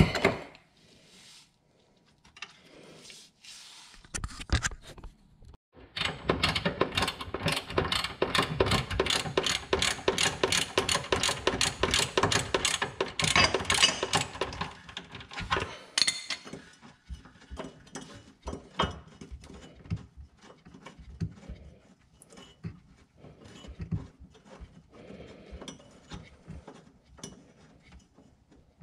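A hand ratchet wrench clicks rapidly as a nut is worked off a rear subframe mount. There is a sharp knock right at the start. The clicking runs densest through the middle, then breaks into shorter, sparser runs of strokes.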